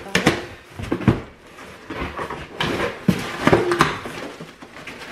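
A cardboard shipping box being opened and unpacked by hand: irregular knocks, rustling and scraping as the plastic jugs inside are taken out.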